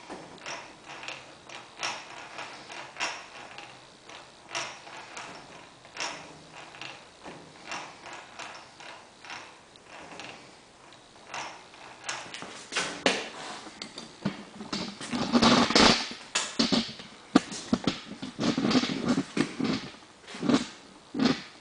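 Hand-turned machined metal square gears meshing with their mating gears and connecting link, giving irregular clicks and ticks. The clatter grows louder and denser in the second half.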